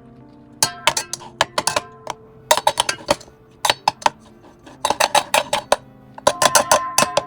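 Quick clusters of small clinks and taps of kitchen utensils against dishes, over soft lo-fi music.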